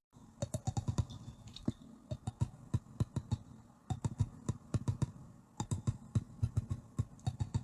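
Rapid, irregular clicks and taps in quick runs of several a second, broken by a few short pauses.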